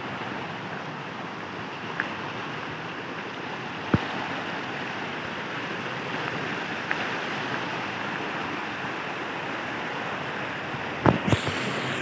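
Steady rush of a shallow rocky stream running over stones, an even hiss of water. A few short knocks are heard, and a quick cluster of them comes near the end.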